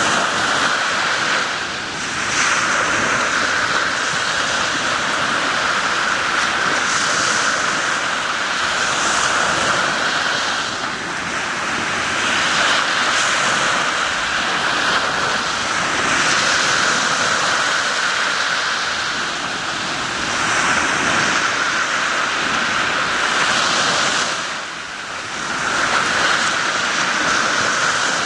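Small sea waves breaking and washing up a sandy beach: a continuous rush of surf that swells and eases every few seconds.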